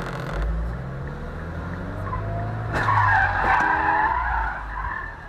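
A Chevrolet Corvette's engine revving hard as it pulls away. About three seconds in, its tyres squeal for roughly two seconds as the car loses grip and spins out.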